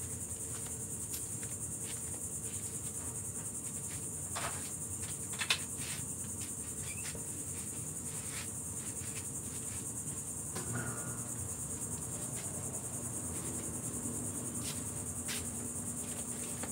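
A steady, high-pitched chorus of insects chirring, with a few scattered soft clicks and knocks of handling; the sharpest click comes about a third of the way in.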